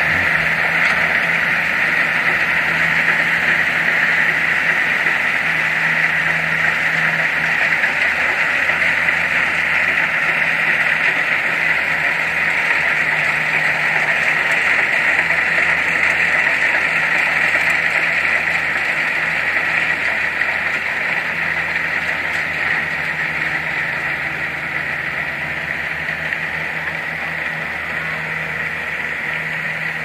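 Kubota DC-60 combine harvesters running steadily while harvesting rice: a constant diesel engine hum under the even rushing noise of the cutting and threshing machinery, a little quieter over the last third.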